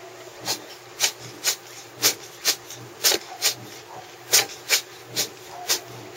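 A cat sneezing in a rapid fit, about eleven short sharp sneezes at roughly two a second. The cat has chronic rhinitis.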